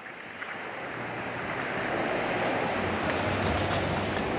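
Outdoor street ambience fading in: a steady rushing noise with a low hum, growing louder over the first two seconds.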